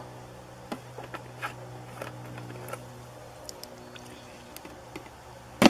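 Water-filled plastic jugs being handled and tipped over, with scattered small plastic taps and clicks and water spilling out of a bullet hole, then one sharp, loud knock of a jug near the end. A steady low hum runs underneath.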